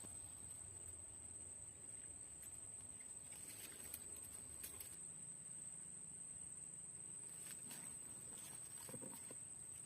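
Faint, quiet ambience: a steady high-pitched whine, with a low hum underneath and a few faint ticks.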